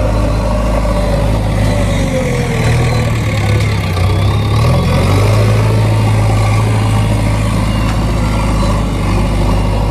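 JCB backhoe loader's diesel engine running while the front loader bucket pushes earth: a steady, deep drone whose pitch shifts briefly about halfway through.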